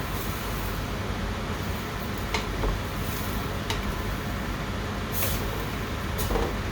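Steady low hum with a hiss, broken by a few light clicks.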